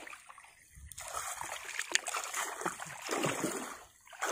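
A person wading through shallow floodwater among rice stubble, with irregular splashing as feet and hands move through the water.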